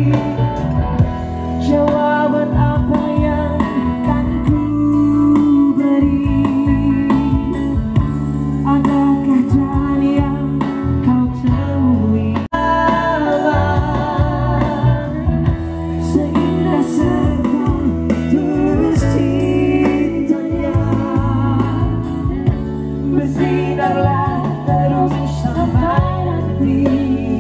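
Live band music with a lead vocalist singing over electric guitar, bass and keyboard, played through an Ashley line-array PA with subwoofers. It drops out for a split second about twelve seconds in.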